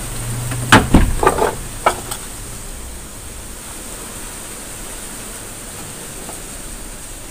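A quick run of sharp metallic knocks and rattles, about five in the first two seconds, from a wooden door's metal bolt and lock being worked, then only a steady hiss.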